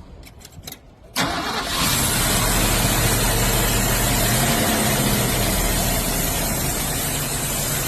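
The 1966 Ford's engine, running on a newly installed carburetor after coming in as a no-start, fires up about a second in after a few quick clicks, then runs steadily at idle.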